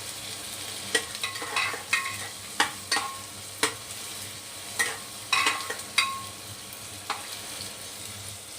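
Chopped onions and green chillies sizzling in hot mustard oil, with a spatula stirring and repeatedly clinking against the metal pan.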